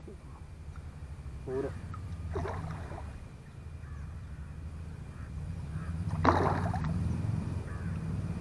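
A crow cawing a couple of times over a low steady rumble, then a single sharp splash about six seconds in where the hooked fish breaks the surface at the end of the fishing line.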